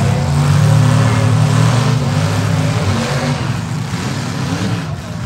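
Demolition derby cars' engines running loud and revving hard, a continuous drone that wavers as the cars push against one another.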